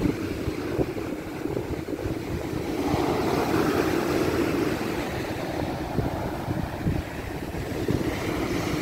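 Sea surf breaking and washing up the beach, swelling louder about three seconds in, with wind rumbling on the microphone.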